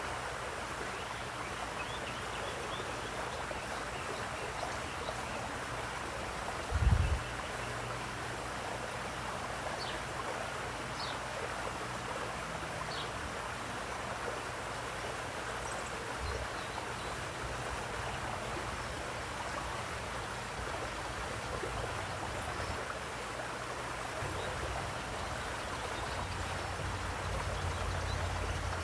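Steady flowing, splashing water at a pool, with a few faint bird chirps. A single brief low thump about seven seconds in.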